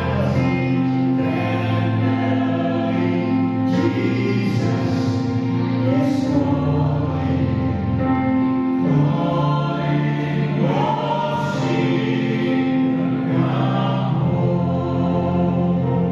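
A church choir singing a Christian song in multi-part harmony, holding long chords that change every few seconds.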